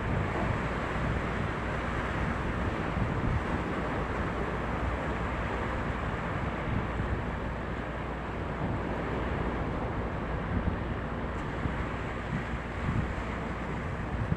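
Steady drone of a boat's engine running, with wind gusting across the microphone in low rumbles.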